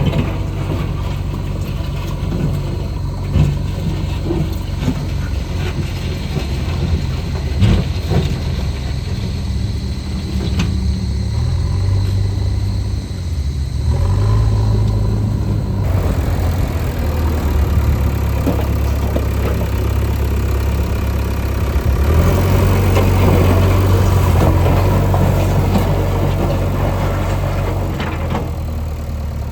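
Diesel engine of heavy construction machinery running, with occasional sharp metallic clanks in the first half. The engine grows louder and heavier about halfway through and again later on.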